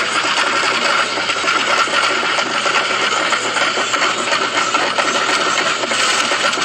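Fireworks burning in a fireworks stand fire: a dense, continuous crackle of many small pops.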